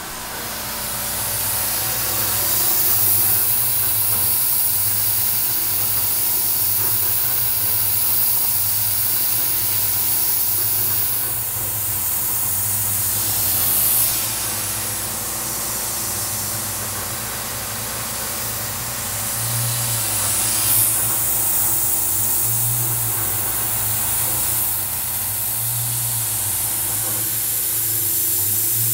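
Tormach 440 CNC mill cutting hardened S7 tool steel with an end mill, under a steady loud hiss from a Fog Buster mist-coolant nozzle. A low, rough chatter swells about every three seconds as the tool comes around, which the machinist puts down to chips being recut because the nozzle can't reach in to clear them.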